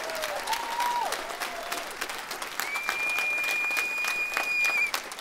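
A roomful of people applauding, dense, irregular clapping, with a short falling whistle early on and a long, high, steady whistle held for about two seconds in the middle.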